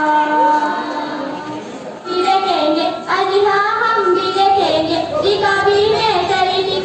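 A group of girls singing a qawwali together, starting about two seconds in. Before that, a steady held chord fades out.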